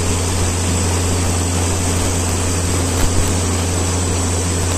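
Fishing-boat diesel engine running hard at speed: a steady, heavy low drone over the rush of water and wind.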